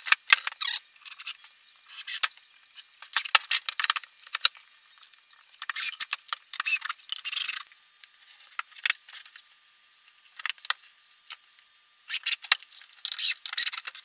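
Wooden boards being handled and fitted together by hand: irregular light knocks, scrapes and rattles, with a longer scrape about six seconds in.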